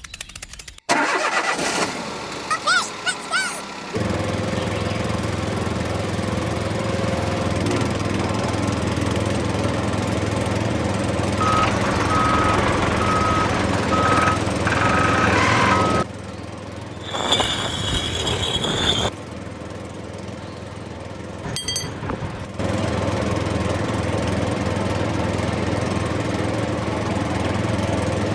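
Small motor of a DIY mini thresher running steadily, heard across several cut-together clips. A run of short repeated beeps sounds over it for a few seconds in the middle.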